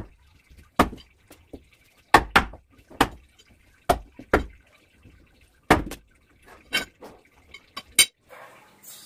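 Sharp, irregular impacts, about ten in all, spaced roughly half a second to a second and a half apart.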